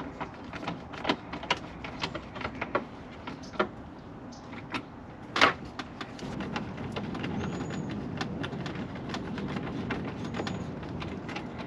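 Irregular clicks and knocks of hand tools and fasteners as the new third brake light is bolted in place, with a steady low rumble joining about halfway through.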